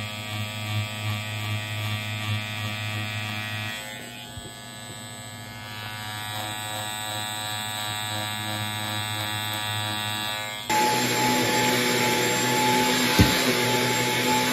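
Electric clipper buzzing steadily as it shaves down the tufted yarn pile on the rug's face. About eleven seconds in it gives way suddenly to a Shark stick vacuum running over the rug, a louder steady rush with a whine, with one brief knock.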